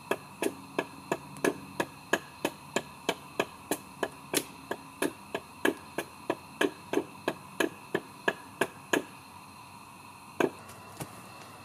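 Hatchet striking wood in quick, even blows, about three a second, stopping about nine seconds in, followed by a couple more blows near the end.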